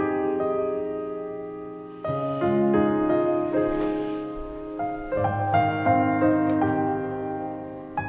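Background piano music, sustained chords and melody notes, with a new phrase striking about two seconds in and again about five seconds in.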